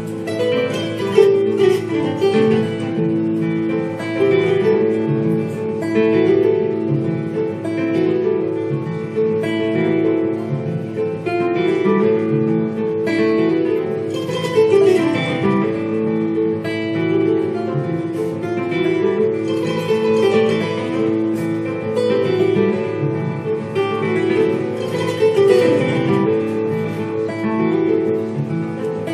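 Acoustic guitar and kora played together live: continuous plucked, interweaving melodic lines with no pauses.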